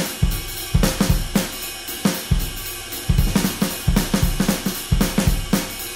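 Background music: a drum-kit groove with kick drum, snare and cymbals keeping a steady beat.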